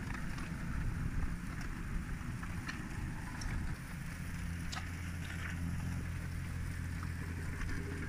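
Engine of the asphalt conveyor machine running steadily. Its low hum settles into a steadier, stronger tone a little before four seconds in. A few scattered light clicks sound over it.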